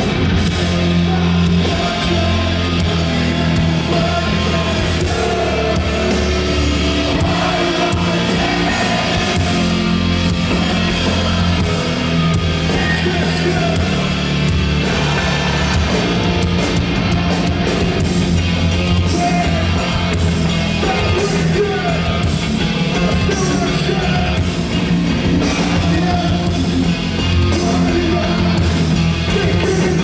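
Live metalcore band playing loud, with distorted electric guitars, bass and drums under shouted and sung vocals. It runs steadily through with no break, heard from within the crowd.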